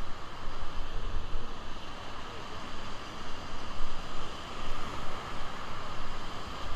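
Steady rush of river water around a rafting boat, its loudness swelling and easing.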